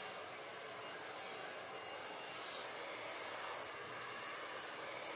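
Hand-held hair dryer blowing, a steady rushing noise of air.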